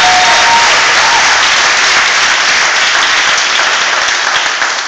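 Audience applauding, a dense steady patter of clapping that begins to ease off near the end.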